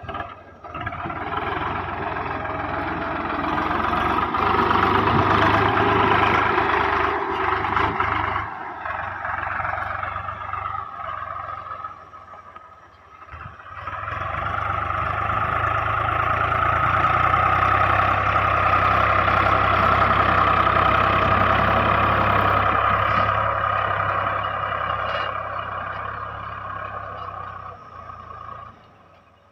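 Swaraj 735's three-cylinder diesel engine running steadily under load as the tractor pulls a tine cultivator through tilled soil. The sound drops out briefly just before halfway and comes back, then fades near the end.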